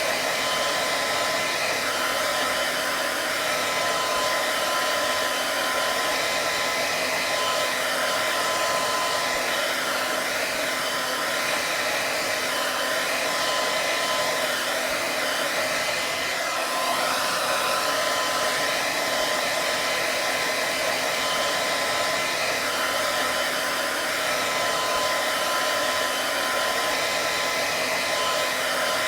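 Hair dryer running steadily: an even rush of blown air with a thin steady tone in it, unchanging throughout.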